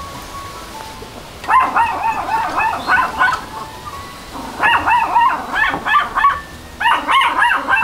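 A dog barking in three quick bouts of rapid, high yaps, with short pauses between them.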